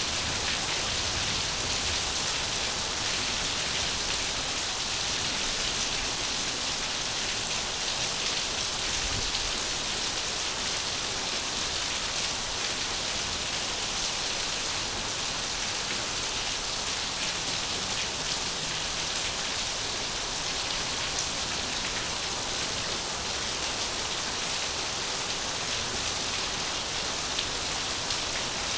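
Steady rain falling on a surface: an even, unbroken hiss of many fine drops.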